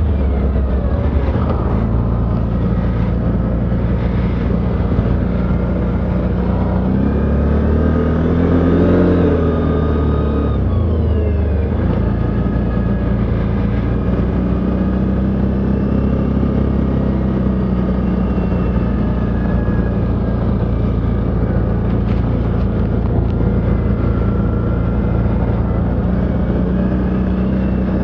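ATV engine running steadily under way, its pitch rising and then falling back about eight to eleven seconds in as the throttle is opened and eased off.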